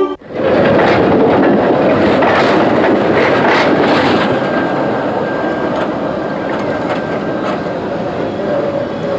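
Electric tram passing close by, its wheels clattering over the rail joints, then running on more quietly as it pulls away.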